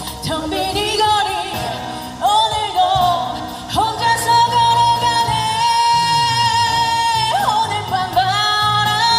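Live street-band music in a wordless stretch of a Korean ballad: a melody line with pitch bends, holding one long note in the middle, over steady low accompaniment.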